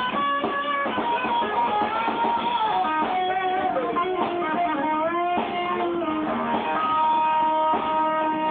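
A live band with an electric guitar lead, playing held and bending notes, in a muffled, low-quality recording.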